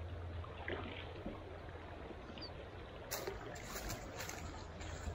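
A mountain trout stream flowing, a steady rush of water, with a few brief sharp splashing or knocking sounds from about three seconds in.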